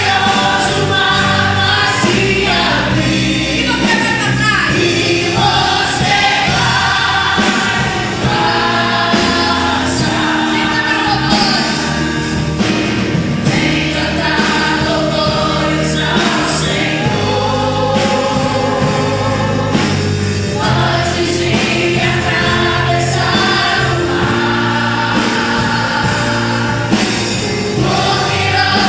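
Gospel song: a choir singing over instrumental backing.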